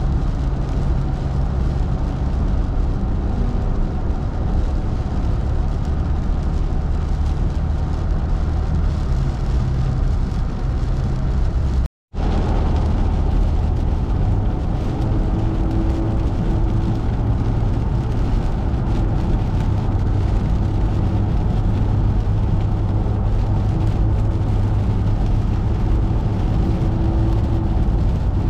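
Car driving at highway speed on a wet road: steady drone of engine and road noise with tyre hiss. The sound cuts out for a moment about twelve seconds in.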